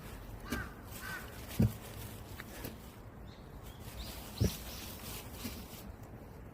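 Footsteps on an outdoor path, a few dull thuds, with two short animal calls about half a second and a second in.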